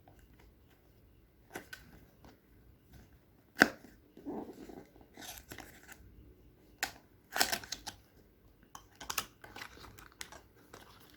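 A small cardboard product box being opened by hand: scattered taps, scrapes and rustles of cardboard and packaging, with one sharper knock a few seconds in.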